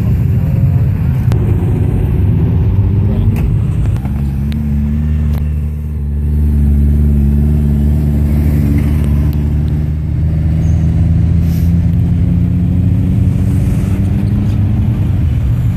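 Car engines running as cars drive slowly past, with a few short revs early on; from about four seconds in, one deep, steady engine note dominates.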